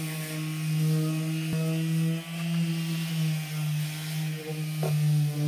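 Electric palm sander (orbital sheet sander) running steadily against a wooden chair frame, a steady buzzing hum, with a short knock about one and a half seconds in and another near the end.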